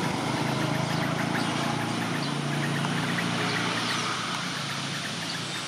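A steady low engine hum, like a motor vehicle idling, with faint short high-pitched chirps scattered over it.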